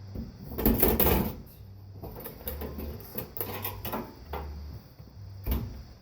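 Computer parts being handled and pulled apart: a loud scraping rattle about a second in, then scattered clicks and clatters and a sharp knock near the end.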